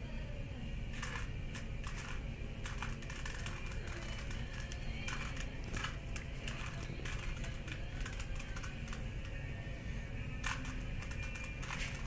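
Plastic Rubik's cube being twisted by hand: quick, irregular clicks of its layers turning during the final moves of a solve, over a faint steady hum.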